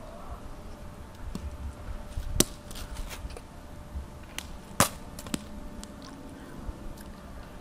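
Oranges being juggled: a few sharp smacks, the two loudest about two and a half seconds apart, over a low steady rumble.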